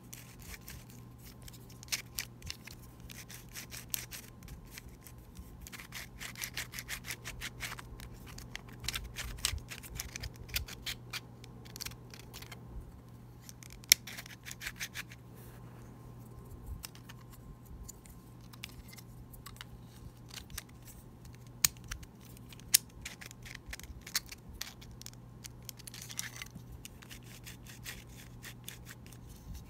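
3D-printed plastic Square-1 puzzle being turned by hand, unlubricated and not broken in: its layers scrape against each other and click as they rotate and slice, with a few sharp, louder clacks as pieces snap into place.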